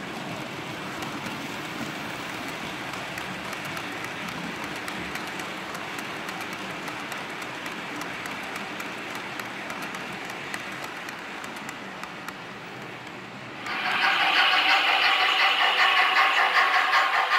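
Model train rolling past, a steady rolling noise of small metal wheels on model track with fine clicking. About 14 seconds in it gives way suddenly to a louder, higher-pitched sound with a rapid ticking rhythm.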